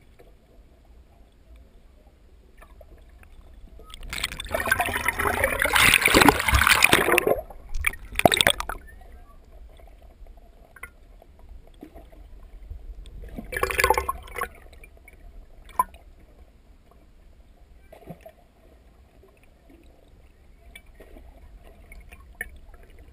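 Muffled underwater sloshing and gurgling heard by a submerged action camera, with loud bursts of splashing and bubbling about four seconds in and again around fourteen seconds.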